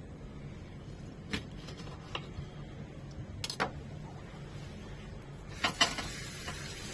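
Kitchen utensils and dishes being handled: a few scattered sharp clicks and knocks, two close together near the end, over a steady low hum.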